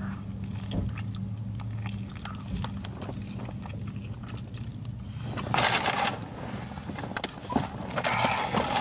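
Mouth noises of a person biting and chewing a soft-bun roast beef and cheese slider, small wet clicks over a steady low hum from the car's engine idling. There is a louder noisy rustle about five and a half seconds in, and paper packaging rustles near the end.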